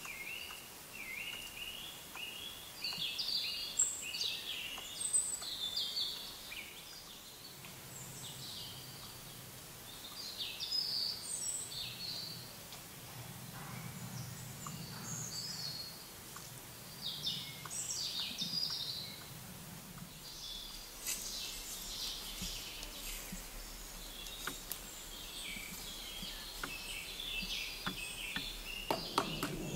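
Songbirds chirping and singing in a forest: short, quick repeated chirps, then varied song phrases coming and going, over a faint background, with a faint low rumble in the middle.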